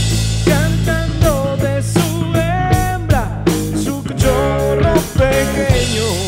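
A rock band playing: electric guitar, electric bass and drum kit. A melody of sliding, bending notes runs over a sustained bass line and drum and cymbal hits.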